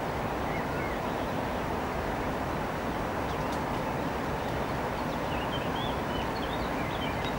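Small birds chirping in short, high calls, a few near the start and a run of them in the second half, over a steady rushing noise.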